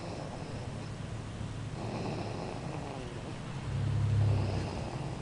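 A four-month-old baby snoring loudly, a low snore on each breath about every two and a half seconds, the loudest about four seconds in.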